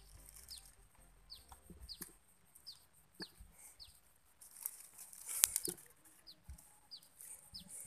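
A bird calling over and over in short, high, falling notes, about two a second. A single sharp click comes about five and a half seconds in.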